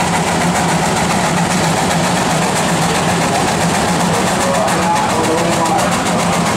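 1911 Case 110 steam traction engine working under heavy load pulling a sled: its exhaust chuffs steadily and loudly up the stack in rapid, even beats.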